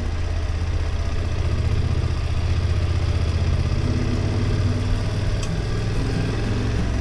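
Motorcycle engine running steadily, a low even drone with no revving.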